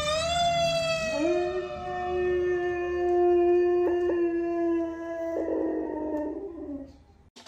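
A dog howling in one long, held note along with a fire engine's siren, the two pitched sounds running together and both dying away near the end.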